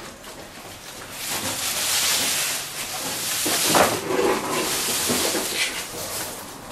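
Rustling and swishing of a bundle of freshly cut elephant grass leaves being handled and spread on a wooden rabbit hutch, with a sharper bump near the middle.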